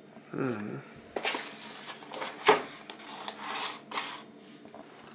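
Handling sounds of a coffee machine and its packaging being unboxed: rustling and rubbing in bursts, with a sharp knock about two and a half seconds in.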